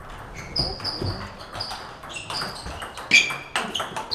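Celluloid-type table tennis ball clicking off bats and the table in a quick run of sharp ticks with a short ringing ping, the hardest hit about three seconds in. Balls also tick from neighbouring tables.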